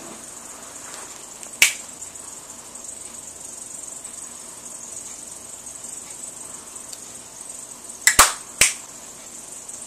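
A steady, high, cricket-like hiss, broken by sharp clicks: one about a second and a half in and three in quick succession near the end, as a small green plastic object is handled.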